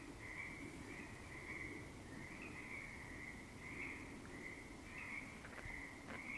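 A steady, high-pitched chirping chorus of night-calling crickets or frogs, pulsing in short phrases. Near the end come about three faint taps, taken as knocks in answer to the question.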